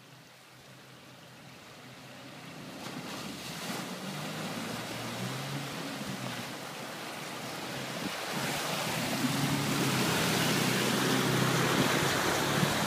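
Toyota Land Cruiser four-wheel drive fording a deep creek: water surging and splashing around it over a steady low engine note, both growing louder as it comes through the water and passes close by.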